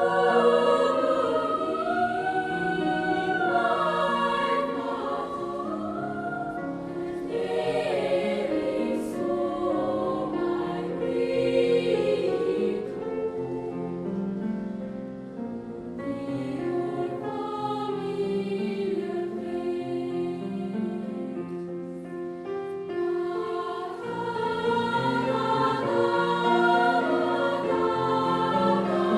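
Background music: a choir-like vocal melody over a soft, steady accompaniment.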